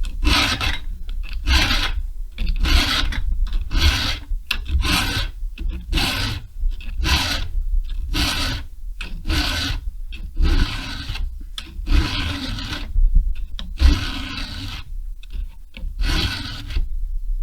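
Chainsaw file stroking back and forth across a steel chainsaw chain cutter in a steady, even rhythm, sharpening the cutters by hand to a milling angle.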